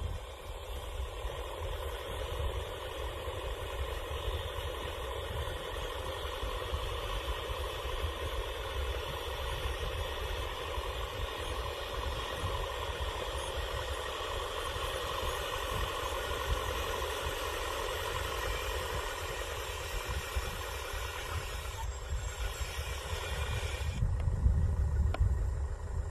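LESU Aoue 850K radio-controlled hydraulic bulldozer model running: a steady whine over a low rumble. About two seconds before the end the whine drops away and the low rumble grows louder.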